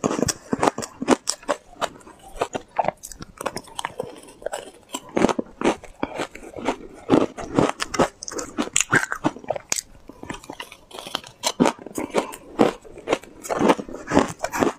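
Close-miked crunching and chewing of powdered shaved ice, a fast irregular run of crisp crunches several times a second, with a metal spoon scooping in a plastic bowl.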